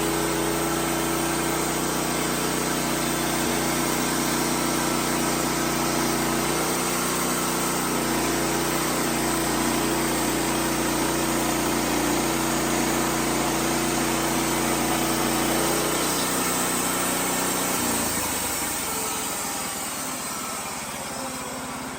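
Wood-Mizer LX55 band sawmill running, its engine droning steadily while the band blade cuts through a large white oak log. About 18 seconds in the engine note drops and the sound tapers off as the cut finishes. The blade was dull on this cut, by the sawyer's account.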